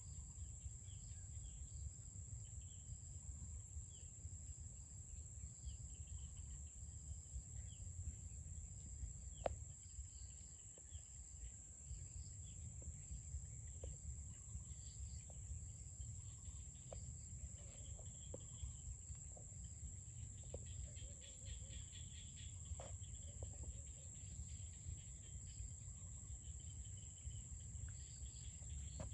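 Open-field ambience: a steady, high-pitched insect trill runs throughout, with scattered short bird chirps and a low wind rumble.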